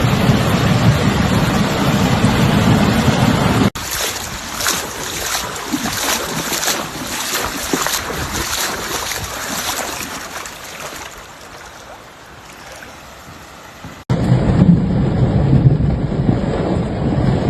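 Rushing floodwater with wind buffeting the microphone, a loud, steady noise. About four seconds in it cuts to a quieter, hissing stretch that fades away, then cuts back to the loud rushing noise near the end.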